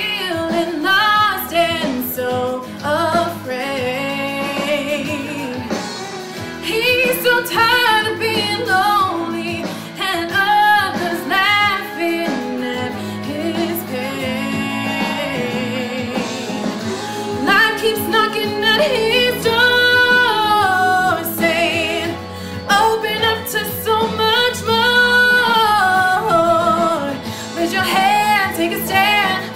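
A woman singing a song solo, with instrumental accompaniment under her voice.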